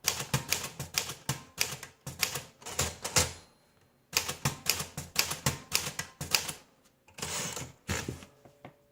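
1938 Corona Sterling portable typewriter typing an alignment test, rows of lowercase and shifted h: runs of crisp key strikes, about four or five a second, with short pauses between runs and a longer rasping sound about seven seconds in.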